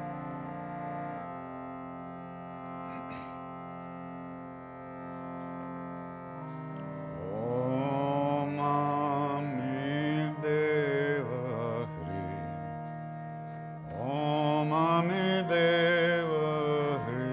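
Harmonium holding a steady chord. A voice sings long, wavering phrases without clear words over it, coming in about seven seconds in and again near the end.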